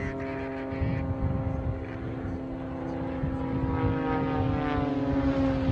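Engine and propeller of a radio-controlled model stunt plane droning steadily while it flies a knife-edge manoeuvre. Part of its tone falls in pitch over the last couple of seconds.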